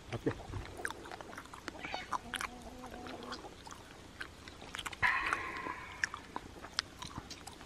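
Small clinks and clicks of chopsticks and bowls and the chewing of a meal, with one louder sound about five seconds in.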